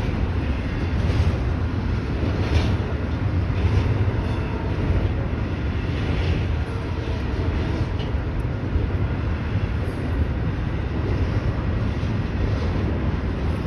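Union Pacific double-stack intermodal train rolling past: a steady rumble of wheels on rail.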